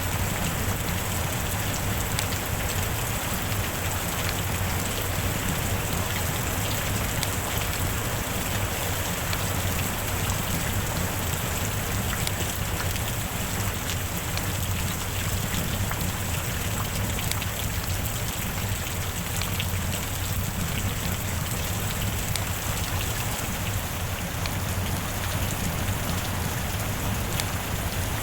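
Rain falling steadily: an even, unbroken hiss with scattered drop ticks.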